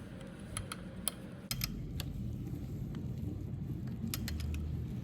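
Irregular light clicks and taps of hand tools and small metal parts being worked on a motorcycle, over a low steady hum.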